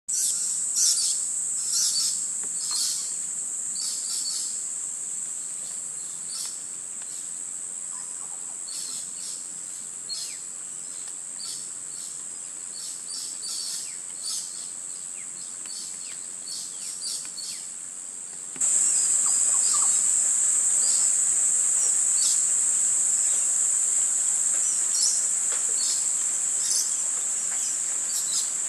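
Steady high-pitched drone of insects with scattered short bird chirps over it. About two-thirds of the way through, the drone abruptly gets louder.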